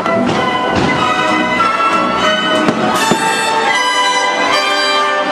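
Orchestral show music with brass and strings playing steadily at a loud level, with a few firework bursts faintly beneath it.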